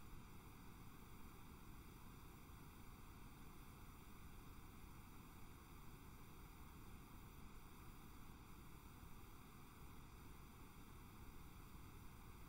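Near silence: a faint, steady hiss from the recording's noise floor.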